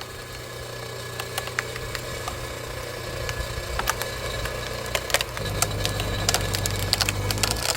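Hydraulic log splitter running with a steady engine hum and scattered sharp ticks. About five seconds in, the hum drops in pitch and grows louder as the ram loads up against a thick log, and the wood begins to crack near the end.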